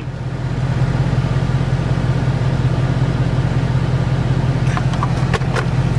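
Dodge Charger's Hemi V8 running steadily, a low even drone heard from inside the cabin.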